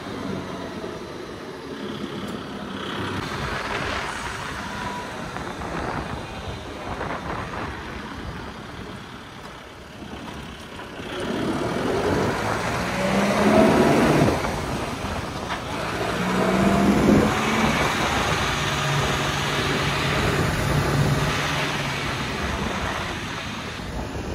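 Motor vehicle running on the road, engine and road noise throughout, growing louder after about 11 s with the engine pitch rising and falling.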